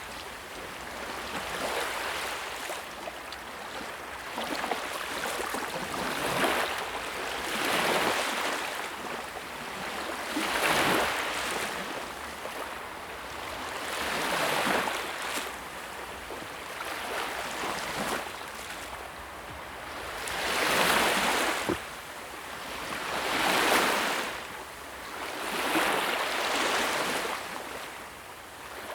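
Sea waves breaking and washing on the shore, a steady hiss of surf that swells and falls back every few seconds.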